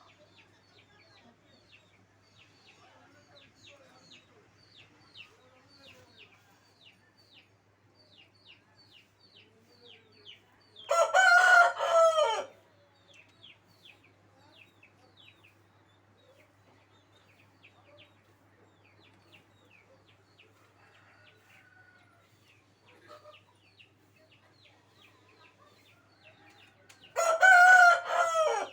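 A rooster crowing twice, each crow a loud pitched call of about a second and a half, the second cut off at the end. Between the crows runs a steady string of short, high, falling chirps, about three a second.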